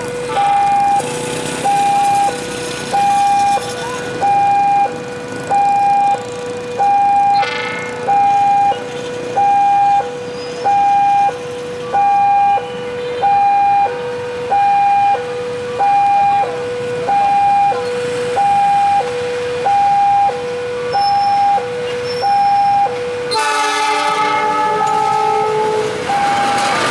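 Railway level-crossing warning alarm sounding a steady two-tone ding-dong, high then low, about once a second. Near the end a diesel locomotive's horn blows a multi-tone chord for about three seconds as the train approaches a level crossing.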